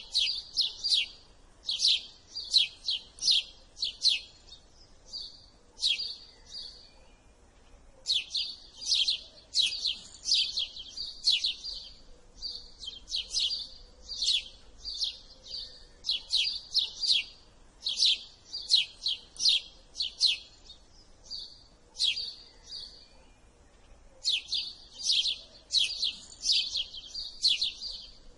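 House sparrow chirping: runs of sharp, repeated chirps, several a second, broken by a few short pauses.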